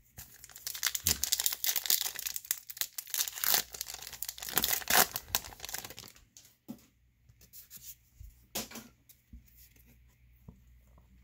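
A foil trading-card pack being torn open and crinkled, dense crackling for about six seconds, then quieter with a few short rustles as the cards are handled.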